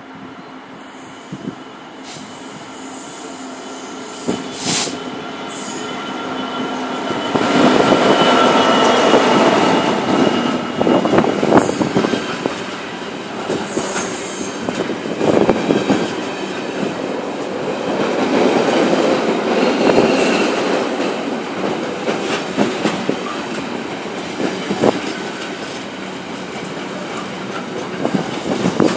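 Container freight train passing close by: the diesel locomotive's engine grows louder as it approaches and passes about eight seconds in, then the container wagons rumble past with repeated wheel clicks over the rail joints and a few brief high wheel squeals.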